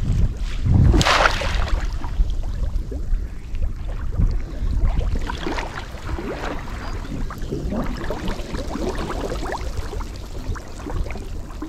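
Water splashing and sloshing around people wading, with a louder splash about a second in and irregular small splashes after it.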